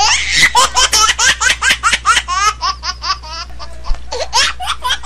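A person laughing hard in a fast run of ha-ha bursts, about four a second, over a steady low hum.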